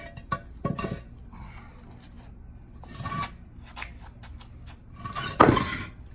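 Metal masonry line clamp clicking as it is fitted onto the edge of a concrete block, then a loud sharp clack near the end as the tied line is yanked hard and jerks the clamped block.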